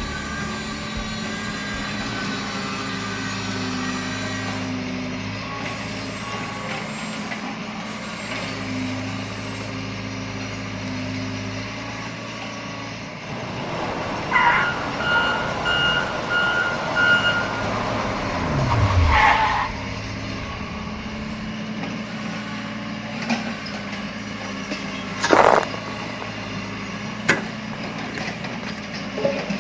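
Heavy vehicle engine running steadily, with a run of about five reversing beeps about halfway through, then a falling drop in engine pitch and a short burst of hiss like an air-brake release. A few sharp knocks come near the end.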